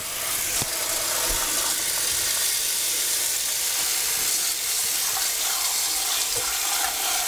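Kitchen faucet running steadily into a glass bowl in a stainless steel sink, the water splashing onto a wool skein being rinsed by hand.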